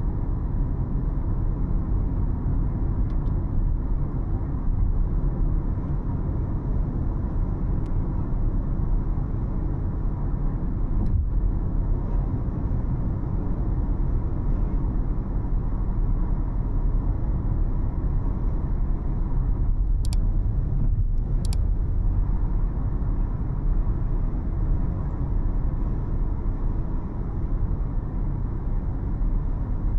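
A car driving along at steady speed: continuous low rumble of engine and tyre road noise. Two short ticks about two-thirds of the way through.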